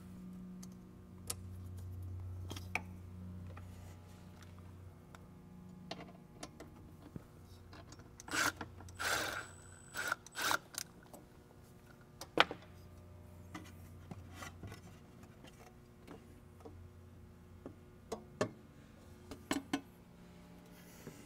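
Scattered clicks and knocks from handling the plastic and metal parts of a cold air intake in an engine bay. About eight seconds in, a cordless power tool runs in three short spurts, loosening the clamp on the intake tube. A low steady hum lies underneath.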